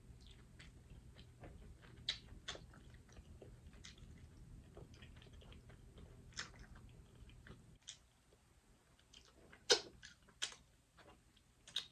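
Close-miked mukbang eating of seafood: wet chewing and mouth clicks, with a sharper click a little before 10 seconds in and another near the end. A low background hum stops about eight seconds in.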